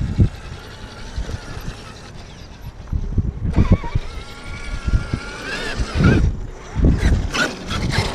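Traxxas X-Maxx RC monster truck's electric motor and drivetrain whining, rising then falling in pitch as it speeds up and slows. Tyres rumble on concrete, and a run of sharp knocks comes near the end.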